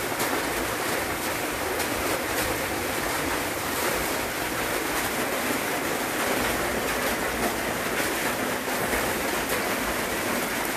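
Heavy rain falling in a steady hiss, with faint scattered clicks through it.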